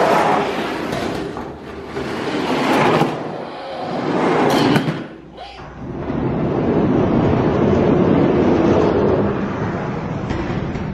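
Spin Master die-cast toy monster trucks rolling down and along orange plastic racing track: a loud rattling rumble of small wheels on the plastic lanes that swells and fades, with a few sharp clacks about four to five seconds in.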